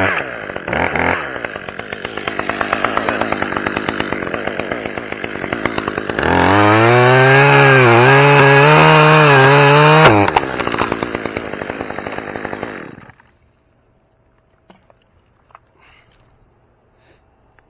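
Top-handle chainsaw running at low revs, then opened up to full throttle about six seconds in to cut through a pine limb, its engine note dipping and recovering as the chain bites the wood. After about four seconds it drops back off the throttle and dies away a few seconds later.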